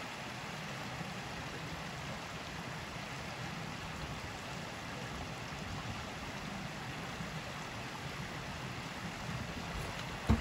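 Creek water running steadily, with one short, sharp knock near the end.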